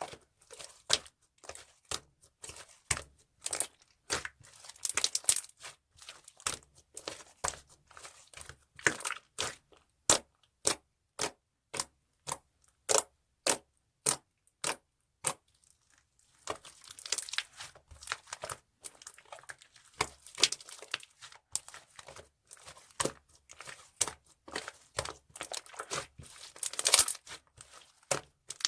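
Mixed slime being pressed, folded and stretched by hand, giving sharp sticky clicks and pops of trapped air. About ten seconds in the clicks come evenly at about two a second for some five seconds, then give way to denser crackling.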